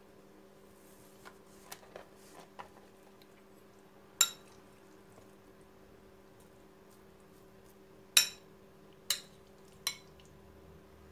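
Metal spoon clinking against a glass bowl while scooping out chicken-and-vegetable filling. There are four sharp, ringing clinks, one about four seconds in and three close together near the end, with a few softer taps and handling knocks earlier.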